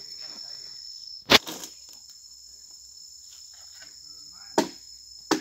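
Insects chirring steadily at a high pitch, with a few sharp knocks: a loud one about a second in and two more near the end.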